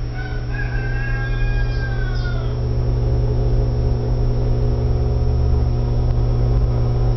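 Electrolux washing machine running with a steady low motor hum; in the first two seconds a whine slides slowly down in pitch and fades out.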